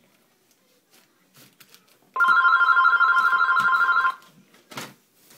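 Electronic telephone ringer, one ring lasting about two seconds that starts about two seconds in, warbling rapidly between two tones.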